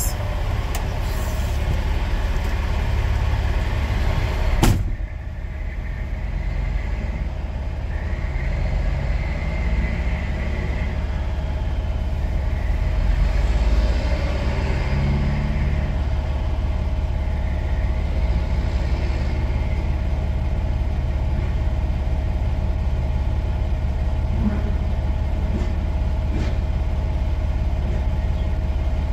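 Semi truck's diesel engine idling, a steady low rumble heard inside the cab, with a single sharp click about five seconds in.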